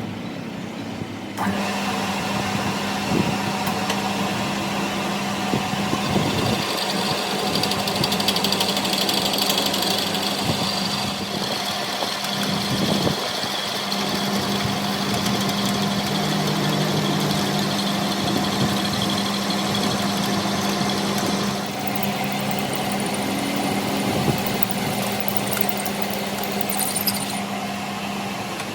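A workshop machine running steadily, with a constant low hum under a dense hiss that starts about a second and a half in.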